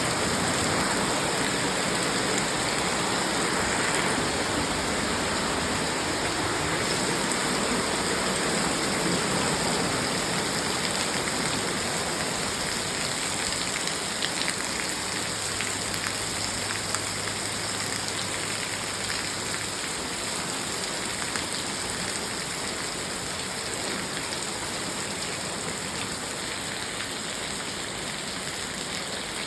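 Steady rain falling, a dense even hiss with scattered drops tapping. It eases off slightly toward the end.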